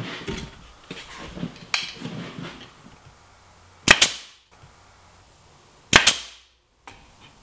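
Pneumatic nail gun firing twice, about two seconds apart, each a sharp crack with a short ring, driving inch-long nails through the easel's wooden back into the support piece. Quiet handling of the wood pieces comes before the first shot.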